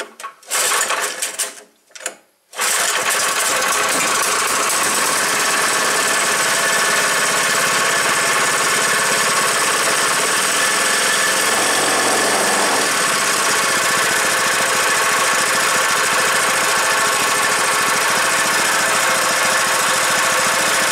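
Predator 212-style single-cylinder four-stroke engine pull-started on its recoil starter, catching about two and a half seconds in and then running steadily, now sparking on a newly fitted ignition coil. The running note wavers briefly about halfway through.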